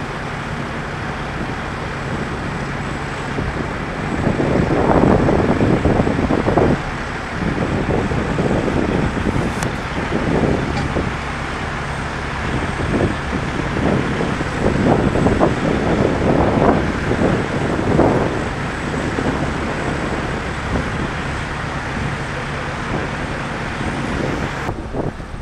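Heavy diesel vehicles idling with a steady low hum under road noise, with louder rumbling surges coming and going through the middle.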